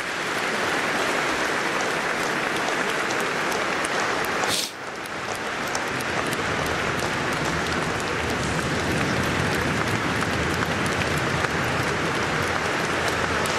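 A large audience in a big hall applauding steadily, the clapping dipping briefly about four and a half seconds in before carrying on.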